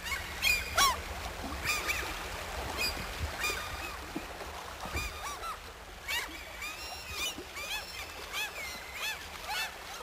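A flock of waterbirds calling: many short calls that rise and fall in pitch and overlap, busiest in the first second and again through the second half.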